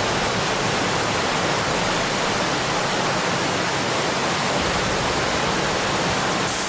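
Steady rush of fast-flowing floodwater from a swollen river.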